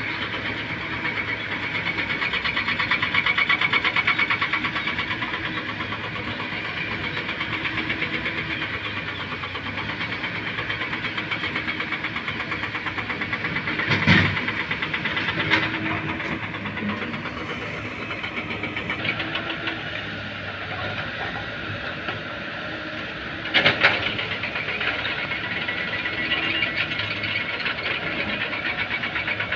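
Hydraulic excavator's diesel engine running under working load with a fast, even chatter. Sharp knocks stand out about halfway through, another a second and a half later, and a quick double knock about three-quarters of the way through.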